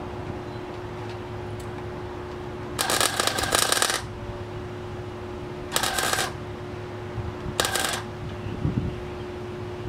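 Wire-feed welder laying short welds on the engine-bay sheet metal of a Rambler American: three bursts of crackling arc, the first about a second long and two shorter ones after it. A steady hum runs underneath.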